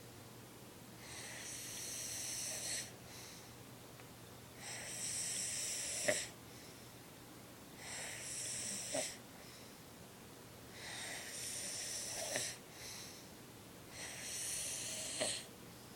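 A sleeping man snoring: five long, hissy, wheezy breaths about every three seconds, with quieter pauses between. Four of them end in a short sharp click.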